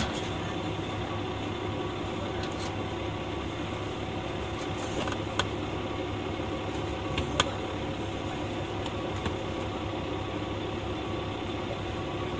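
KiHa 120 diesel railcar's engine idling steadily, heard from inside the carriage while the train stands still. Two short sharp clicks about five and seven seconds in.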